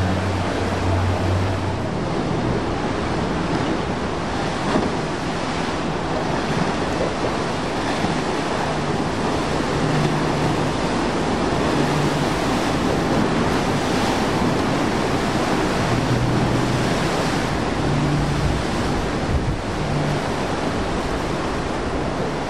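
Steady rush of turbulent canal water churning under a strong tidal current and boat wakes, with wind buffeting the microphone. A faint low engine hum comes and goes.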